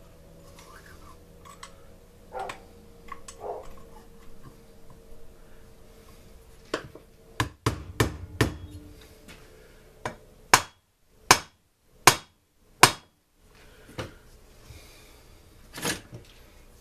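Sharp metal knocks from tools striking the parts of a two-stroke blower engine, which is rusted together and stuck fast. There are scattered knocks, then four loud strikes evenly spaced under a second apart about two-thirds of the way in, and two more near the end.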